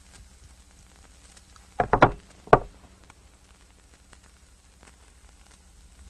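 A quick run of three or four sharp knocks about two seconds in, then a single knock half a second later, over faint crackling and a low hum.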